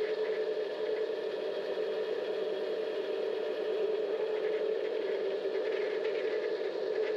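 Vevor 7x12 mini-lathe running steadily with a constant motor whine while a knurling tool rolls a pattern into the spinning workpiece.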